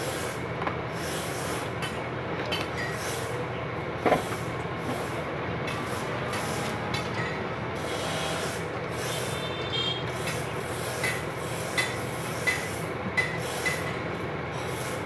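Circuit boards and tools being handled on a workbench: light rubbing and a few short clicks, a sharper one about four seconds in and several small ones near the end, over a steady background noise.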